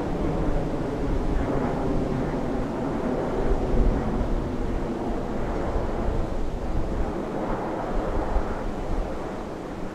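Steady distant jet rumble from a formation of nine BAE Systems Hawk jets climbing, mixed with wind buffeting the microphone.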